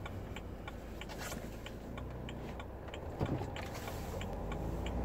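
Inside a BMW's cabin at low speed, the turn-signal indicator ticks evenly at about three ticks a second over the low rumble of the engine and road, which grows stronger near the end as the car picks up speed. There is a single knock about three seconds in.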